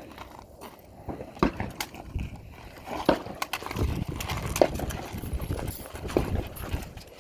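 A series of irregular knocks and clacks, some with a short ring after them, the loudest about two thirds of the way through.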